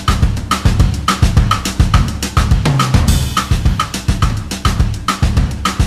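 Background music with a drum kit playing a steady beat over a bass line.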